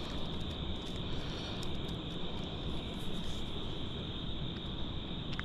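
Evening pond-side ambience: a steady high-pitched insect chorus over a low, even rumble, with a few faint ticks.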